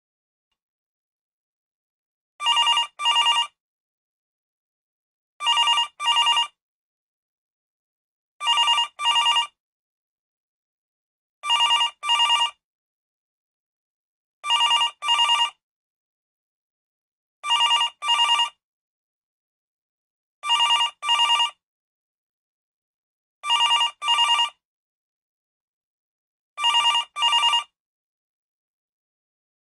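Desk telephone ringing in a double-ring pattern: two short rings in quick succession, repeated about every three seconds with silence between, nine times.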